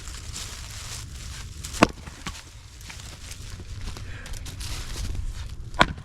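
A 6-pound splitting maul striking ash firewood rounds, two sharp impacts about four seconds apart, the first followed by a lighter knock.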